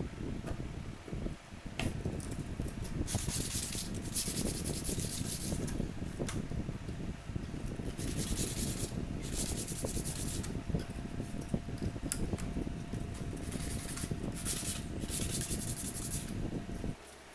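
Hand tools scraping and rubbing along a marble-pattern laminate sheet on a wooden door, in several short strokes of about a second each, over a steady low hum.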